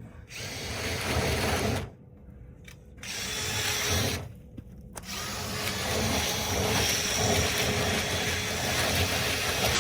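Power drill spinning a rotary dryer-vent cleaning brush through the vent duct. It runs in three stretches: two short runs of about a second and a half each, then a longer run from about five seconds in.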